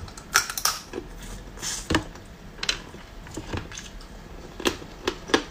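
Close-up eating sounds of cooked crab claw: irregular sharp clicks and cracks as the shell is bitten and picked apart with the teeth and fingers to get at the meat.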